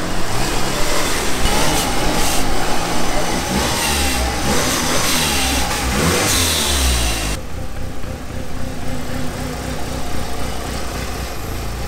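Mitsubishi Lancer Evolution VIII's turbocharged 4G63 inline-four running, its revs rising and falling as it is driven slowly. About seven seconds in, the sound changes suddenly to a quieter, steadier engine note.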